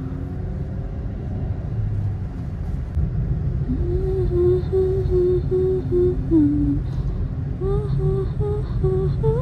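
Steady car road and engine rumble heard from inside the cabin, with a person humming a slow tune starting about four seconds in.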